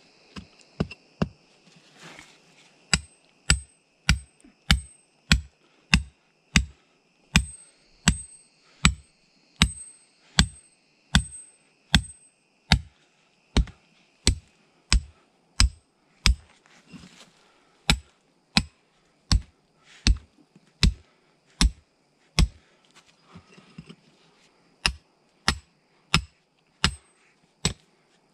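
A metal tool striking hard again and again in a steady working rhythm, about two blows a second, each blow a sharp knock with a short metallic ring, with a few brief pauses.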